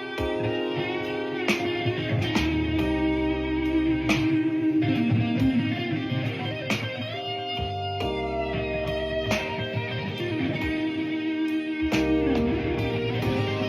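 Electric guitar playing blues: plucked, sustained notes over a low bass line, with several notes bent down and back up in pitch.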